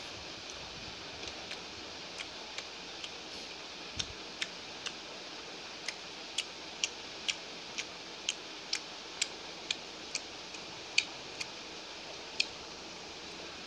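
A person chewing mutton biryani with sharp, wet mouth clicks and lip smacks. The clicks come irregularly, up to about two a second at the busiest stretch, over a steady hiss.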